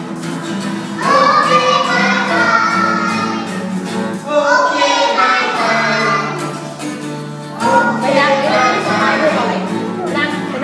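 A class of young children singing together to an acoustic guitar, in loud phrases that start afresh about every three seconds.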